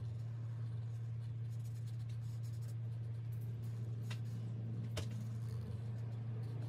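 Marker scratching on a paper savings-challenge card as it writes, with a couple of light ticks about four and five seconds in, over a steady low hum.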